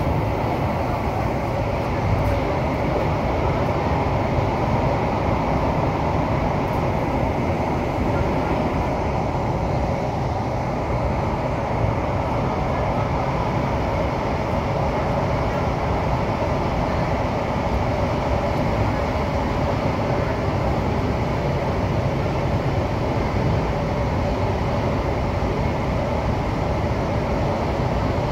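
Metro train (Thomson-East Coast Line set CT251) running at speed through a tunnel, heard from inside the car: a steady, even noise of wheels on rail and the train's running gear, with a faint steady hum mixed in.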